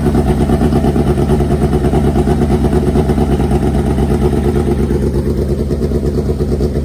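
Drag-racing motorcycle engine idling loudly with an even, pulsing beat.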